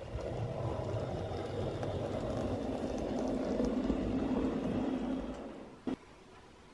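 OO gauge model tank locomotive running along the track, its small electric motor whirring and wheels rumbling on the rails, fading out about five seconds in. A single sharp click follows near the end.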